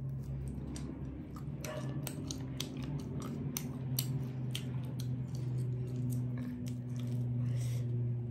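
Close-up clicks and small crackles of fingers picking apart a hard piece of fried chicken, with a bite near the end, over a steady low hum.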